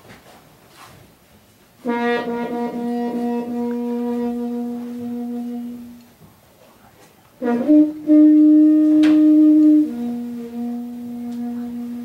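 A long conical horn blown in long held notes. First comes one low note for about four seconds. After a short gap comes a slightly higher, louder note that steps back down to the low note near the end.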